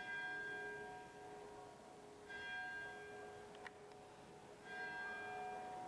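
A single bell tolling faintly: three strokes of the same note about two and a half seconds apart, each ringing on with several steady tones before dying away.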